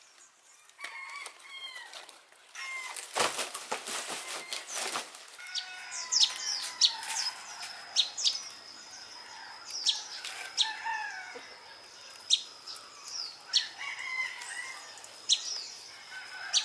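Birds chirping, with short high chirps repeating about once a second from about six seconds in over a steady high whine. A loud burst of rustling around three to five seconds in, from dry palm fronds being handled.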